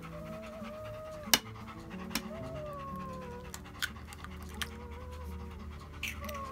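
Sharp taps of an eggshell and a wooden stick against a metal pan, the loudest about a second in, over background music with steady held notes. Gliding high whines, like a dog whining, run through it.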